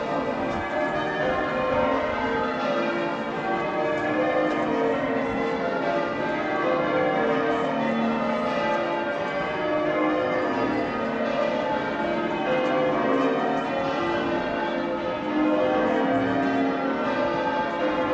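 Church bells ringing changes: many bells sounding in continuous overlapping rounds.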